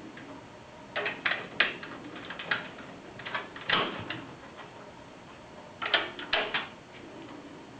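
Clicks and knocks of a DVD drive being worked into a computer case's 5¼-inch drive bay and its tool-less lock mechanism, coming in four short clusters.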